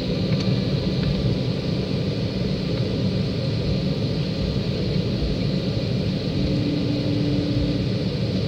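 Airliner cabin noise during pushback from the gate: a steady low rumble with an even hiss over it. A steady hum comes in about six seconds in and lasts a little over a second.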